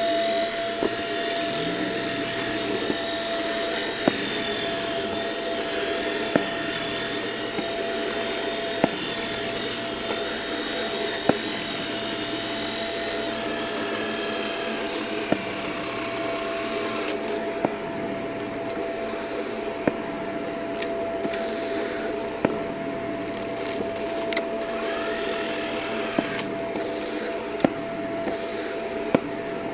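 Vacuum cleaner running steadily with a high motor whine, picking up a crunchy mess, with sharp clicks of debris every couple of seconds. Partway through, the hiss of the airflow turns duller.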